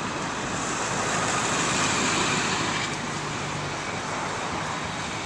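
Street traffic: a vehicle passing on the road, its engine and tyre noise swelling to a peak about two seconds in and then fading.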